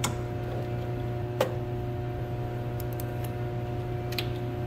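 Hand ratchet driving a crowfoot wrench on a bolt: a handful of scattered metallic clicks and clinks from the ratchet and wrench, the loudest about a second and a half in, a few close together past halfway. A steady low hum runs underneath.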